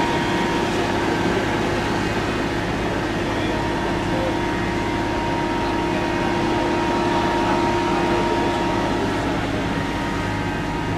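Fire engines' diesel engines running their water pumps: a steady, unchanging mechanical drone with a constant hum over it.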